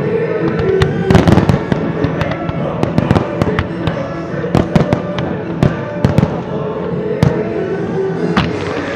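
Aerial firework shells bursting in quick succession, many sharp bangs over music playing for the pyromusical show.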